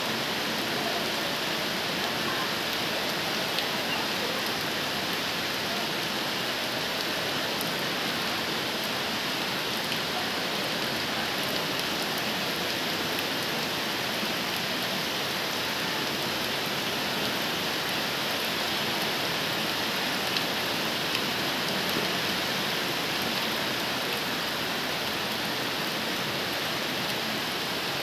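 Heavy downpour: steady, even rain hiss, with a few sharper drop ticks now and then.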